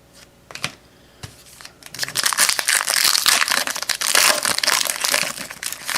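A few light clicks as cards are handled, then, from about two seconds in, a loud dense crinkling as a trading-card pack's wrapper is opened.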